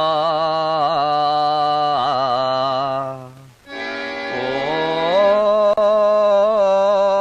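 A woman's voice singing an eerie, wordless ghost song in long held, wavering notes over a sustained drone. The song comes in two phrases with a short break about three and a half seconds in.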